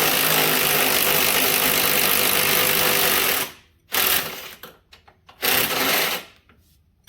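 Handheld power tool running in one long burst of about three and a half seconds, then two short bursts, as it works a stuck fastener loose on the ATV's suspension arm.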